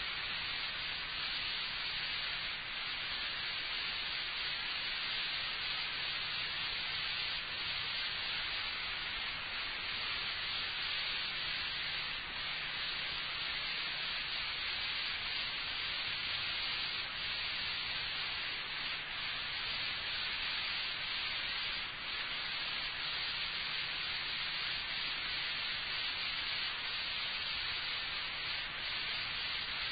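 Steady hiss from the recording's own background noise, with no speech, and a faint low hum underneath.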